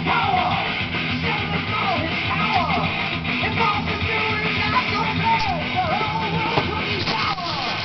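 Rock music playing steadily, with a melody line that slides up and down in pitch.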